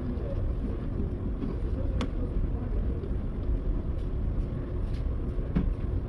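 Light clicks and taps of hands and parts working inside a stripped car door's inner frame, the sharpest about two seconds in, over a steady low rumble.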